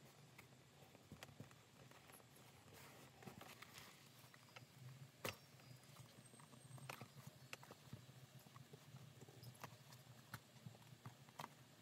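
Faint handling sounds of a fabric bag body being folded and pressed flat on a cutting mat: soft rustling and scattered light taps, with one sharper click about five seconds in, over a low steady hum.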